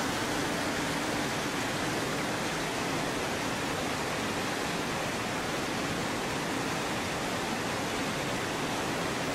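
Mountain stream rushing over small rocky cascades: a steady, even rush of water with no change.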